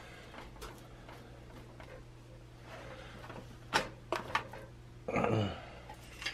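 Metal spoon clicking and scraping against a plastic food container while seasoned butter is spread on a raw roast, with a few sharper clicks near the four-second mark. A little after five seconds comes a short sound that slides down in pitch, under a steady low hum.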